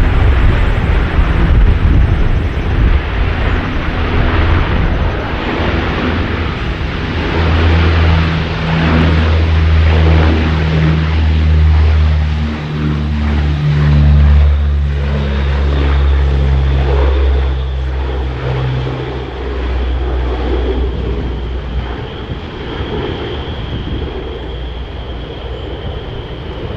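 Four-engine military turboprop aircraft running, with a deep propeller hum of steady low tones and a thin high turbine whine that comes in during the second half.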